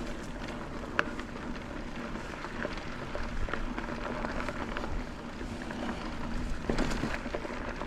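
Mountain bike rolling along a dirt trail: tyre noise and wind on the microphone, with scattered clicks and rattles from the bike, a sharp click about a second in and a cluster of knocks near the end.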